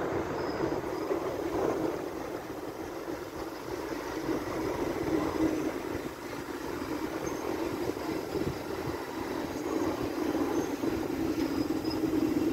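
Thameslink Class 700 electric multiple unit running past, a steady running noise of wheels on rails.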